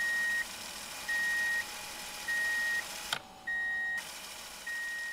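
Electronic warning beeper, such as a vehicle's, sounding a steady high beep about half a second long roughly every 1.2 seconds, five times. There is a short click about three seconds in.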